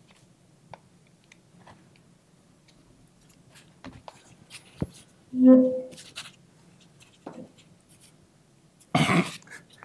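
Small metal clicks and scrapes as gloved hands work the MGD PM9 submachine gun's takedown button and try to lift the receiver side panel off. A short low hum sounds about halfway through, and a louder scraping clatter comes near the end.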